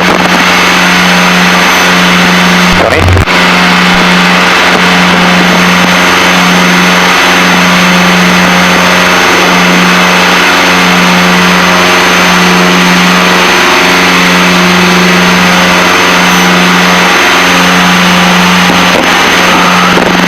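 The Piper Seneca's two propeller engines droning steadily in the cabin at taxi power. The drone throbs slowly, about every second and a half, as the two engines run slightly out of step. There is a brief dropout about three seconds in.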